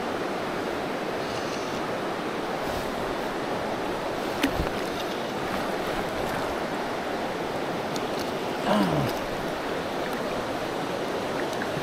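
Steady rush of a shallow mountain river's current running over rocks. There is a single click about four and a half seconds in, and a brief louder sound about nine seconds in.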